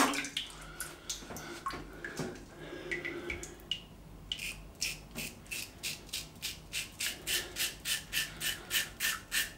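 Double-edge safety razor (Wilkinson Sword twist-to-open, with a Dorco Titan blade) scraping through lathered stubble in short quick strokes, about four or five a second. The strokes begin about four seconds in, after a quieter stretch with a few faint clicks.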